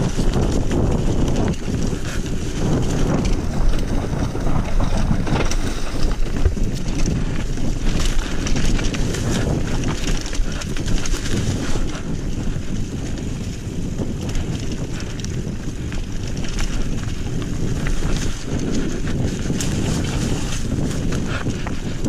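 Wind buffeting the microphone while a Trek Remedy 7 full-suspension mountain bike rides down a rough trail, with tyre noise and frequent clicks and knocks from the bike rattling over the ground.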